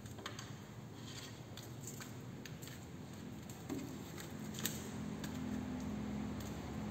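Scattered light clicks and taps as a kitten bats at and grabs a small toy ball dangling on a string. A steady low hum comes in a little past halfway.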